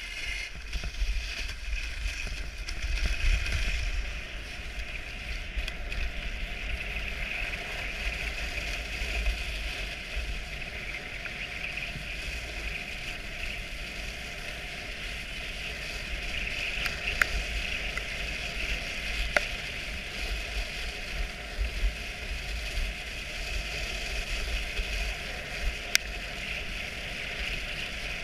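Dogsled running behind a six-dog team: a steady hiss of the sled and the dogs' feet over snow, with wind rumbling on the microphone. A few sharp clicks come in the second half.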